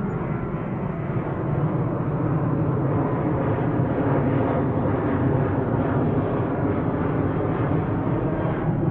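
Jet airliner engine noise: a steady, loud roar that grows a little louder about a second and a half in, then holds.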